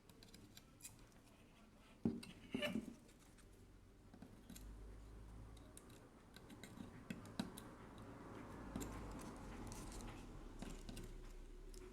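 Faint scattered clicks and light knocks of small parts and tools being handled, with two sharper knocks about two seconds in and a low hum coming in about halfway through.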